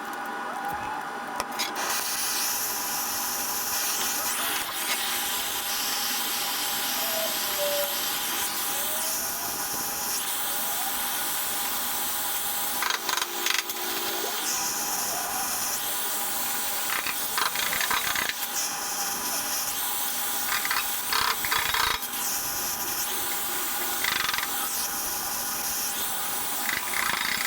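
Metalworking on steel: a steady hiss, with brief louder stretches of high hiss every few seconds and scattered clicks and clinks of metal.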